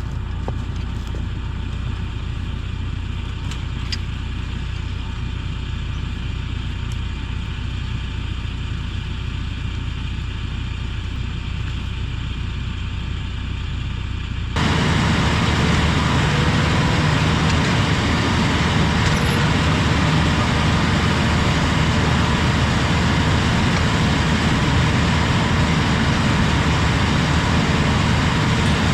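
LS tractor's diesel engine running steadily, with a low hum. About halfway through it abruptly becomes much louder and stays that way.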